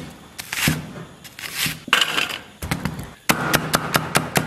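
Chinese cleaver cutting on a wooden chopping block: a few separate slicing strokes through a red onion, then, about three seconds in, a fast run of sharp knocks as a scallion is chopped.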